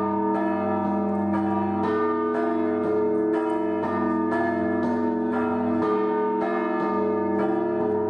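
Russian Orthodox bell chime from the Pskov-Pechersky Monastery belfry, rung to call the faithful to the service. Several bells are struck in a steady rhythm of about two strikes a second over the held ringing of the larger bells.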